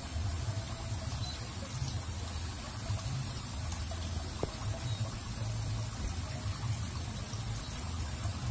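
Water running and trickling in a concrete drainage channel, steady, with a low, uneven rumble underneath.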